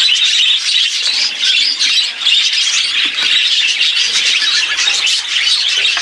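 A flock of budgerigars chattering continuously, many birds calling over one another in quick high notes.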